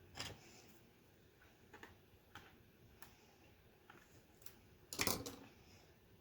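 Small plastic parts of a Commodore 64 keyboard being handled: scattered light clicks and taps, with a louder brief clatter about five seconds in.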